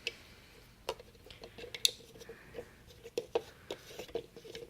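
Irregular light clicks and taps of objects being handled, about half a dozen spread out, over a faint steady hum.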